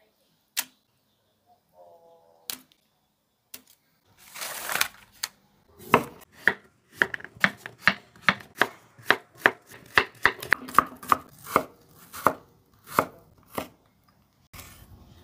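Santoku knife chopping squash and onion on a wooden cutting board. A few scattered knocks come first, then a steady run of sharp blade-on-board strikes at about two a second, turning to quicker, softer chopping near the end.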